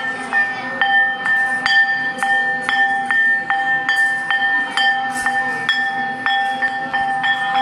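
A metal bell rung in a steady rhythm, about two strokes a second, its ringing note carrying on between strokes.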